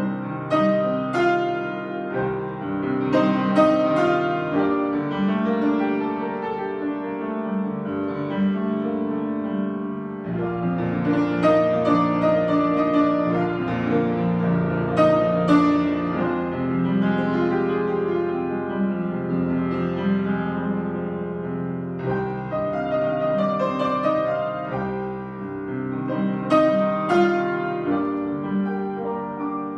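A 93-year-old grand piano, freshly tuned, being played: a flowing passage of struck notes and held chords, with deep bass notes coming in about ten seconds and again about twenty-two seconds in.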